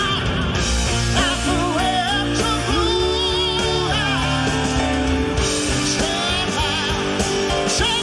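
Southern rock band playing live: electric guitars, bass and drums under sung lead and backing vocals held with vibrato.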